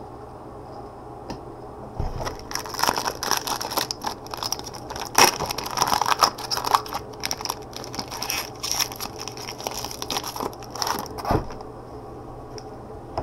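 Crinkling, crackling and tearing of a trading-card pack's foil wrapper handled and opened by hands in nitrile gloves. It starts about two seconds in, has a sharp crack about five seconds in, and stops near the end.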